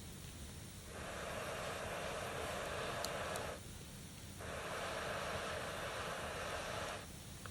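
A person blowing hard on a wood fire to fan the flames, in two long breaths of about two and a half seconds each with a short pause between.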